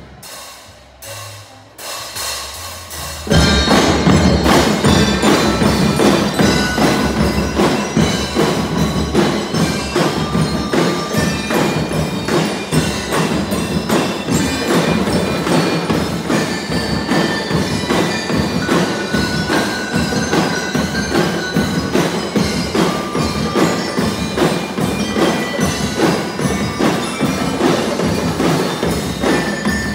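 Drum and lyre band playing: bell lyres ring out a melody over a steady drumbeat. The start is quieter, with a few sharp taps, and the full band comes in suddenly about three seconds in.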